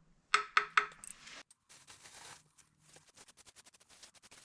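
Three quick ringing taps of a hard object, then scraping and a run of small quick scratches, as work goes on at the old toilet flange and drain opening.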